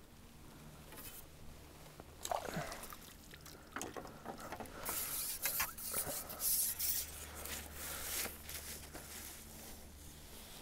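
Water splashing and trickling from a wet landing net as a fish is netted and the net lifted out of the river, with light scrapes and taps from handling the mesh; the splashing is loudest and most continuous about halfway through.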